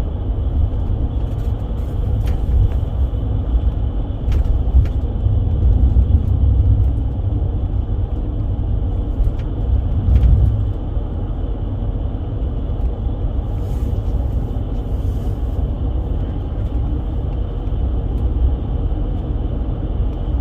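Steady engine and road rumble inside a moving vehicle's cabin, swelling briefly about five and ten seconds in.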